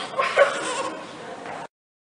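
A baby's short cry, loudest about half a second in, under a faint murmur of voices; the sound cuts off abruptly near the end.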